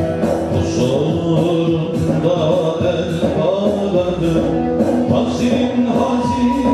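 Male voices singing a Turkish ilahi (Sufi religious hymn) over a steady percussion beat of about two strokes a second.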